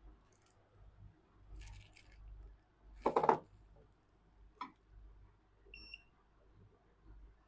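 Small handling sounds at a phone-repair bench: a brief burst of rustling noise about three seconds in, a sharp click, then a single short, high electronic beep.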